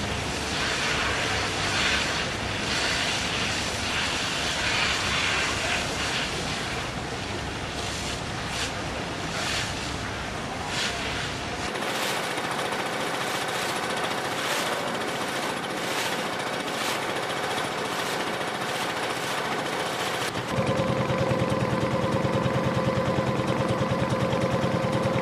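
Construction-site machinery running, a dense steady mechanical clatter with scattered knocks. About 20 seconds in it switches to a louder, steady engine-like drone with a rapid pulse.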